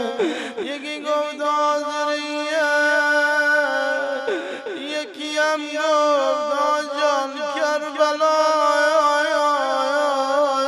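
A man's voice chanting a Persian Muharram elegy (rowzeh) in long, held, wavering notes, a mournful lament melody sung into a microphone. Brief downward-sliding sounds come in about half a second in and again around four seconds.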